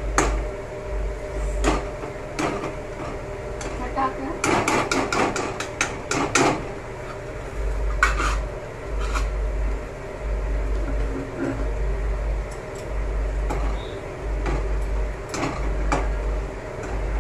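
Metal spoon scraping and knocking against a steel kadhai as grated pumpkin is stirred and roasted in ghee, to cook off the last of its moisture. The strokes come irregularly, with a quick run of clicks about four to six seconds in.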